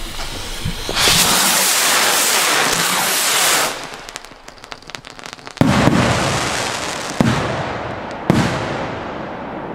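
Firework rockets launching with a loud rushing hiss that lasts a few seconds. Scattered crackles follow, then three sharp bangs as they burst overhead, each echoing away.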